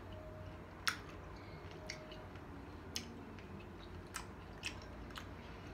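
A pickle being chewed, with six sharp crunches at irregular intervals of roughly half a second to a second.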